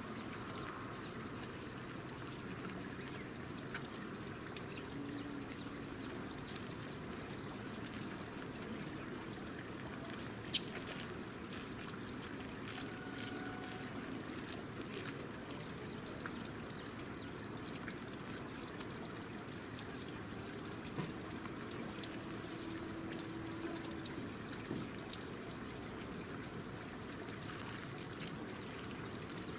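Steady rushing background noise, with a sharp click about ten and a half seconds in and a few faint, short tones.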